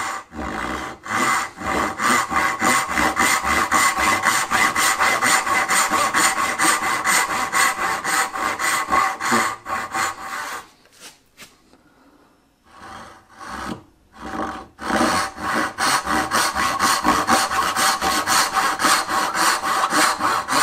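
Brass-backed dovetail saw rip-cutting down into the end of a board with quick, regular back-and-forth strokes, sawing the cheeks of a through dovetail to the line transferred from the tailboard. The sawing stops for about two seconds a little past halfway, a couple of short strokes follow, then steady sawing resumes.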